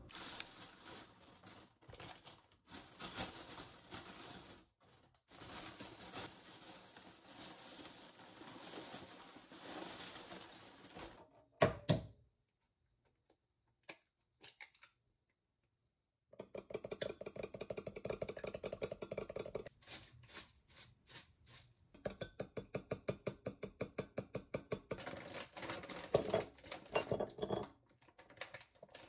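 Plastic grocery bag rustling, then a single knock. Eggs cracked into a glass mug, then beaten with fast, rhythmic clicking against the glass. Near the end, a plastic food packet crinkles.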